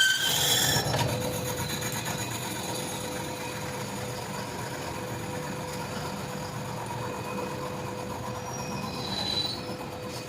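Metal-working machine tool running steadily, with a low rumble and a thin steady whine. A brief rising squeal comes near the end.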